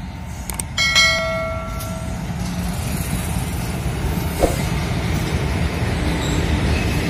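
A goods train hauled by two electric locomotives, with container wagons behind, passes close by: a steady heavy rumble of wheels on rail that grows slightly louder. A brief ringing tone starts suddenly about a second in.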